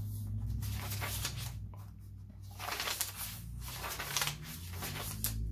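Paper pages of a handmade journal being turned by hand: rustling and crinkling, with a few sharper crackles about three to four seconds in.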